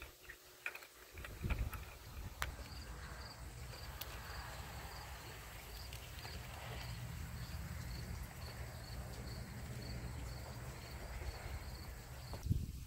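LGB G-scale model locomotive running along garden railway track: a steady low motor and wheel hum with a light, regular ticking about two to three times a second. A thump near the end.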